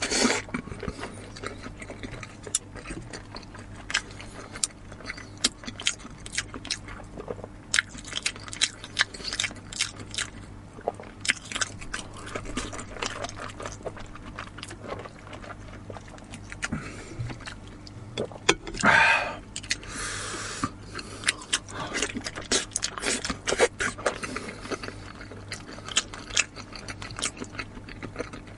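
Close-miked eating sounds: chewing and biting into braised pork nose and zucchini, a dense run of sharp wet clicks and crunches, with one louder crunching burst about two-thirds of the way through.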